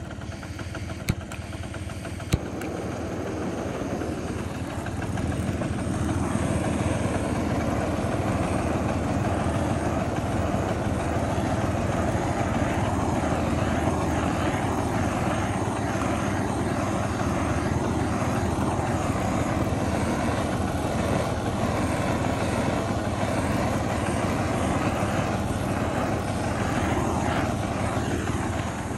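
Hand-held SOTO butane torch on a gas canister, burning with a steady hiss of the flame that grows louder over the first five seconds and then holds. Two sharp clicks come in the first two and a half seconds.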